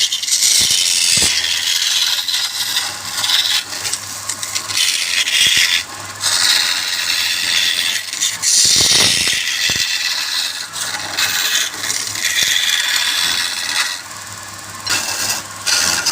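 A turning tool scraping and cutting wood on a spinning lathe, in stretches with short breaks, over the steady low hum of the lathe motor.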